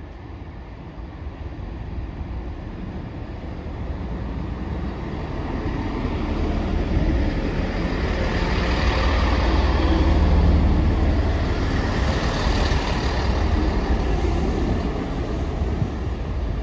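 East Midlands Railway diesel multiple unit pulling into the station. Its deep engine and wheel rumble grows louder over the first ten seconds or so and stays loud.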